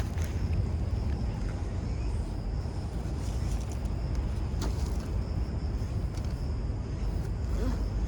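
Outdoor background ambience: a steady low rumble with a thin steady high hiss and a few faint clicks.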